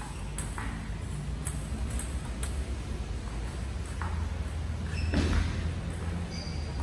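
Table tennis balls ticking: a handful of sharp, irregular plastic-ball clicks over a low, steady hum.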